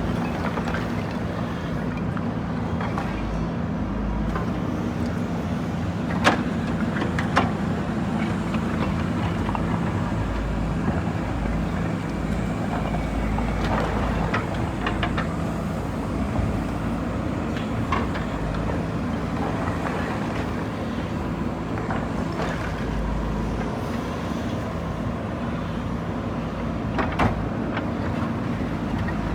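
Diesel engine of a JCB backhoe loader running steadily during demolition work, with a few sharp knocks about six and seven seconds in and again near the end.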